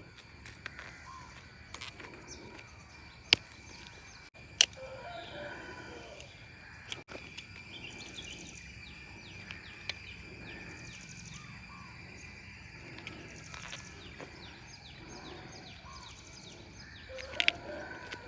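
Birds chirping over a steady high-pitched background hum, with a few sharp clicks or knocks: two loud ones about three and four and a half seconds in, and a quick cluster near the end.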